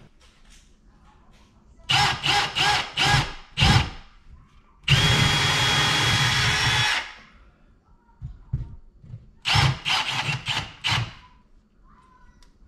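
Cordless drill boring into a wall. It starts with a string of short trigger pulses, then runs steadily for about two seconds, then gives another string of short pulses near the end.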